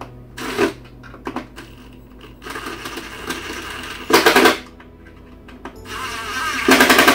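Cordless impact driver driving screws into a drawer-front bracket in two runs. Each run starts with the motor spinning and ends in a loud burst of rapid hammering as the screw seats tight.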